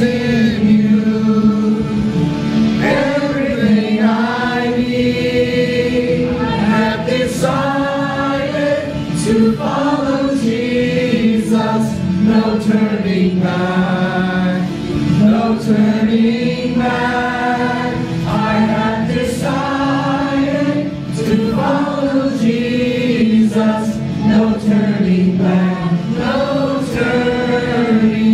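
A group of voices singing a hymn together, moving from one held note to the next.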